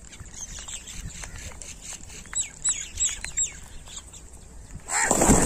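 A few faint clicks, then four or five short, high chirps in quick succession about halfway through. Near the end a flock of house crows suddenly takes off, with a loud rush of wingbeats and cawing.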